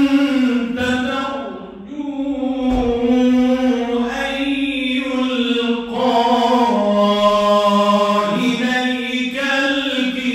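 A man's voice reciting the Qur'an in the melodic mujawwad style, singing long, ornamented phrases with held notes. The voice pauses briefly for breath about two seconds in and again around six seconds.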